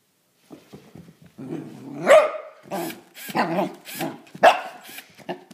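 Young Pembroke/Cardigan cross corgi puppy barking at a cordless drill held in front of him: a string of about six sharp barks, starting about a second and a half in.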